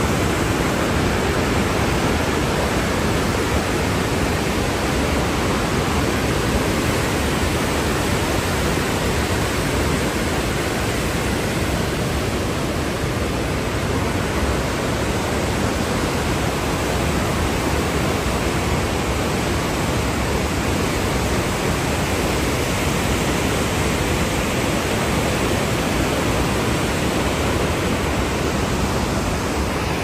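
Large waterfall and whitewater river rushing, a loud steady, unbroken wash of water sound.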